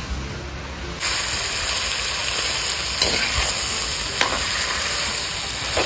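Spiced mutton pieces frying in hot oil in a kadai, with a steady sizzle that starts about a second in. A slotted spatula scrapes across the pan a few times as the meat is stirred.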